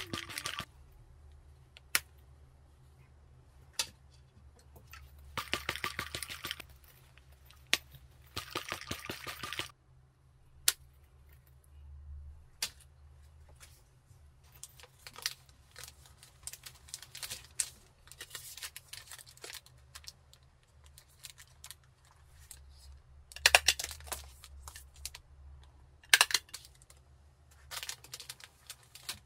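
Tabletop handling sounds while packing small fabric card wallets: scattered clicks and taps, several short rasping rustles, and near the end a clear plastic sleeve crinkling as a wallet is slipped into it. A faint steady low hum runs underneath.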